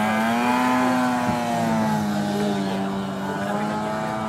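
Racing speedboat engine running at high revs. Its note climbs just before and holds high and steady, easing slightly lower later on.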